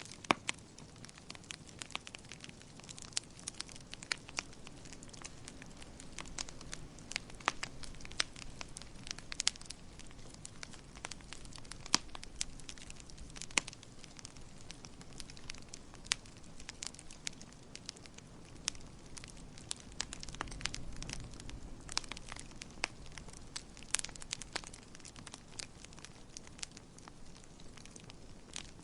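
Wood fire in a fireplace crackling, with irregular sharp pops over a soft low rumble of the flames.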